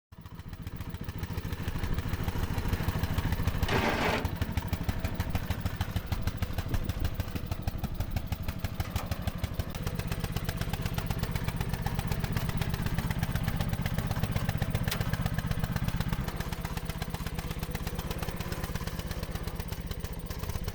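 A small engine running steadily with an even, rapid firing pulse, and a short noisy rush about four seconds in.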